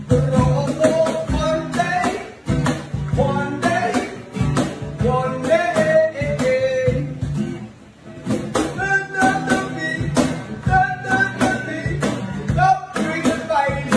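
A man singing a song live, with a guitar strummed along; the music dips briefly about eight seconds in.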